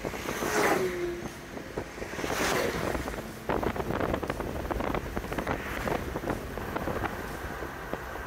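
Road and wind noise from inside a moving car, steady, with two swells like passing vehicles going by, about half a second and two and a half seconds in.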